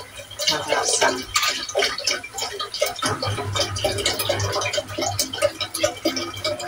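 Chicken broth poured from a carton into a stainless steel soup pot already holding liquid: a continuous splashing trickle into the liquid.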